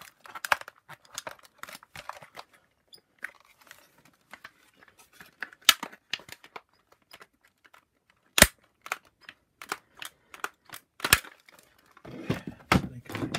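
Irregular clicks, taps and sharp knocks of hard plastic vacuum-cleaner nozzle parts being handled during disassembly. The loudest knock comes past the middle, and there is denser rustling and clattering near the end.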